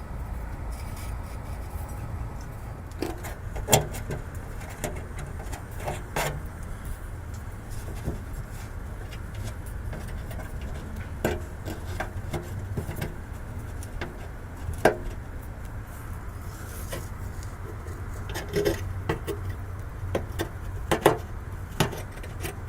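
Scattered sharp clicks and light knocks from hands handling an oxygen sensor's cable and clips under a car, heard over a steady low rumble.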